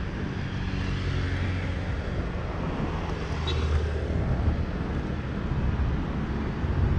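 Road traffic: a motor vehicle's engine running with a steady low hum that grows stronger near the end as it comes closer.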